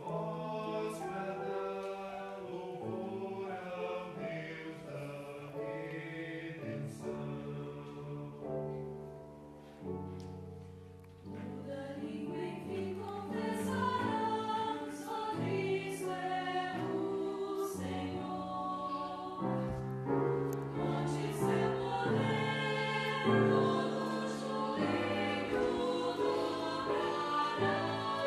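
Concert choir singing with piano accompaniment, in sustained chords. The sound softens about ten seconds in, then swells louder again.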